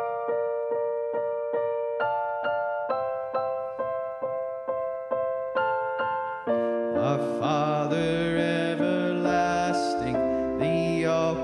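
Worship band playing a song intro: a keyboard plays repeated notes at about two a second, then about six and a half seconds in the rest of the band comes in with bass and a fuller, louder sound.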